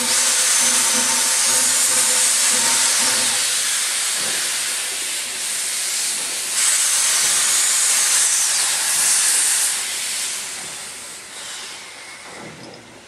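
East Broad Top steam locomotive venting steam in a loud, steady hiss. It eases briefly near the middle, surges again, then dies away toward the end.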